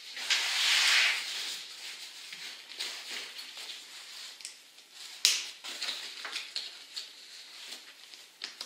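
Nylon webbing straps and fabric bags rustling and scraping as a ukulele gig bag is strapped to a backpack's side buckles. There is a loud rustling scrape in the first second, then softer handling and small clicks, with one sharp click about five seconds in.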